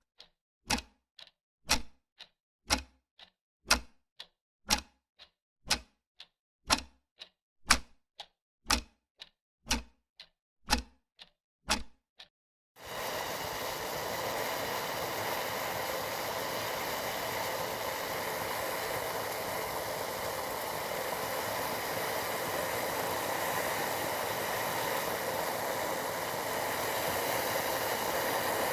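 A run of sharp, regular clicks, about two a second, louder and softer in turn. About 13 s in they stop and tea boiling in a pan takes over: a steady bubbling hiss that grows a little louder near the end.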